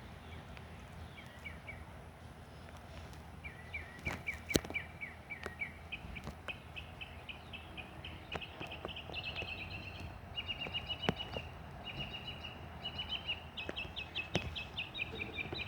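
A bird chirping in a fast run of short, high notes, several a second, starting faintly and going on steadily from a few seconds in. A few sharp clicks stand out over it.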